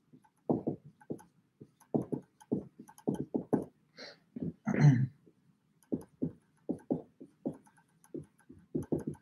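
Dry-erase marker writing on a whiteboard, the words "Desire Fulfilment Theories": a run of short, irregular strokes, a few a second, the loudest about five seconds in.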